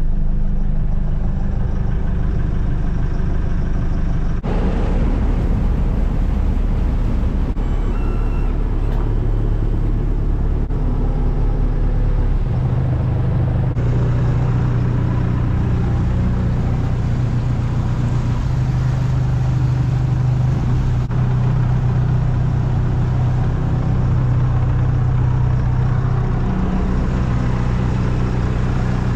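A fishing boat's inboard diesel engine running as the boat moves through the harbour, its note stepping up a little about twelve seconds in.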